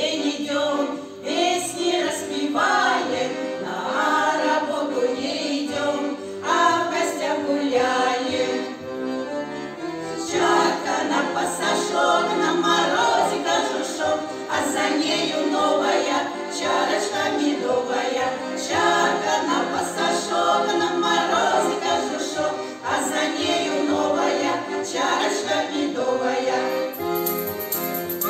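Choir singing a song with instrumental accompaniment, the sung phrases running on without a break over held notes.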